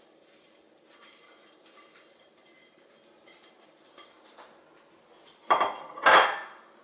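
Faint rustling and light taps as chopped vegetables are brushed off a plate, then near the end two loud clatters of a ceramic plate knocking against a glass bowl, the second longer and ringing.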